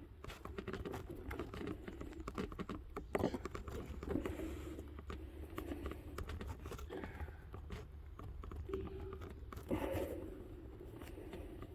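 Irregular clicks, knocks and light clatter of hand tools and parts being handled during work on an engine, over a steady low hum.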